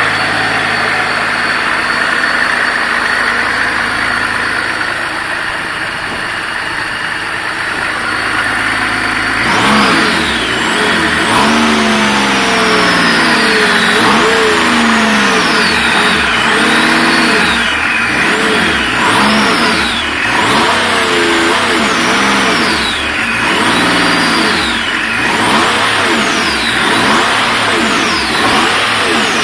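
BMW M51 2.5-litre six-cylinder turbo-diesel idling steadily. About a third of the way in it starts being revved up and let fall back again and again, roughly once every two seconds.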